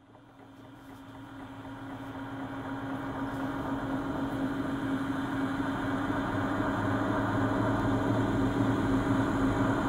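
Low, steady droning hum that fades in from silence and grows gradually louder over several seconds.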